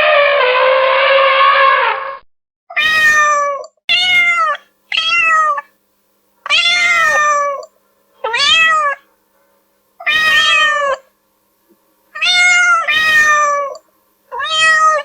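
Domestic cat meowing repeatedly: about nine separate meows, each rising then falling in pitch, with short silent gaps between them. Before the meows, a long steady pitched call from another source ends about two seconds in.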